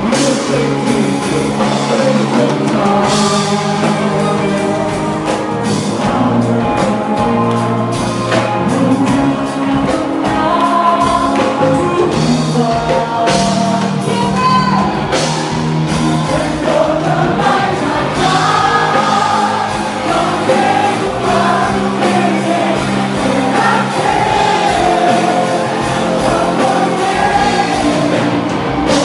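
Live band playing a pop-rock song with singers on microphones, over electric bass and drum kit.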